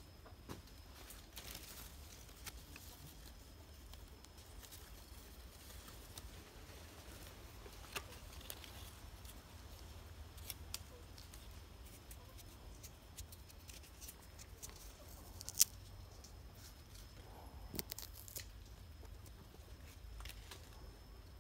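Hands handling a cluster of green Baccaurea fruit and leaves on the tree: scattered faint clicks and rustles, with a sharper click about fifteen seconds in, over a low steady rumble and a faint steady high tone.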